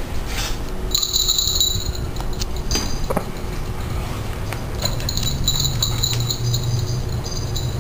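Light metallic clinking and jingling in two spells, about a second in and again through the second half, over a steady low rumble.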